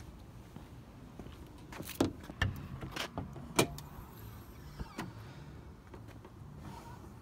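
A handful of short, sharp clicks and knocks, most of them between two and four seconds in, from the McLaren MP4-12C's catches and releases being worked while someone looks for the way to open the engine cover.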